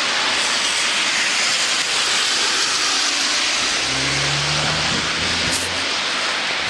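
Steady hiss of rain and wet-road traffic on a city street, with a vehicle's engine humming past from about four seconds in.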